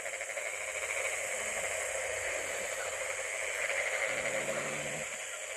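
Steady chorus of insects and frogs calling at night, heard as a dense, fine-trilling hiss. About four seconds in, a faint low hum sounds briefly.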